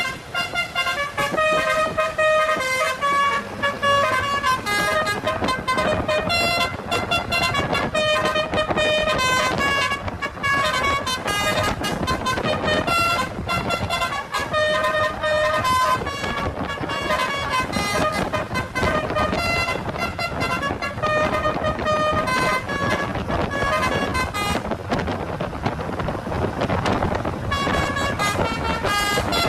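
Indonesian tour bus's 'telolet' horn, a set of multi-tone air horns, playing a fast run of short notes in changing pitches, repeated over and over.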